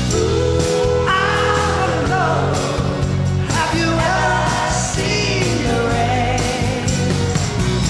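Live rock band playing a song, with sung lead and backing vocals over steady bass and drums.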